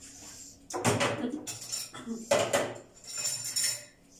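Dishes and utensils clattering as they are handled, in three bouts starting about a second in.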